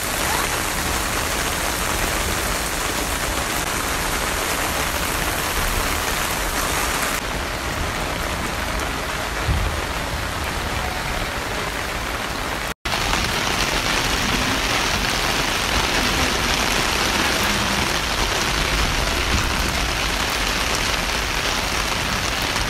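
Heavy rain pouring steadily. The sound drops out for an instant about halfway through.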